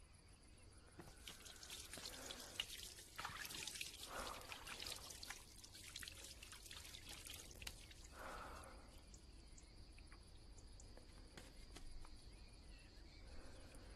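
Shower water running and dripping faintly. The spatter is heaviest in the first half and thins to scattered drips past the middle.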